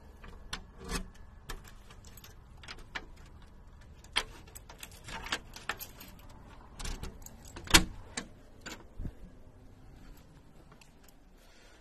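Keys jingling and a key clicking and turning in the lock of a glass door, with scattered sharp metallic clicks and rattles from the lock and lever handle; the loudest click comes a little before eight seconds in.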